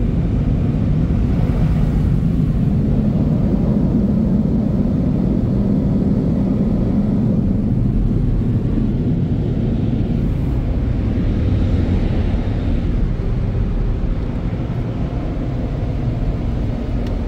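Car wash tunnel blower dryers running, heard from inside the car as it passes through them: a loud, steady low rumble that eases a little in the last few seconds as the car clears the dryers.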